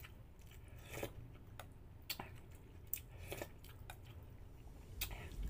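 Faint chewing and mouth smacks of a person eating, with scattered soft clicks every half second or so.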